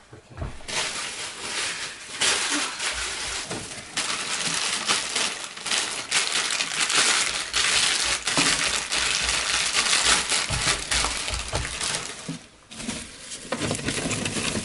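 A plastic bag crinkling and rustling up close as greens for guinea pigs are taken out of it: a steady run of crisp crackles that eases briefly near the end.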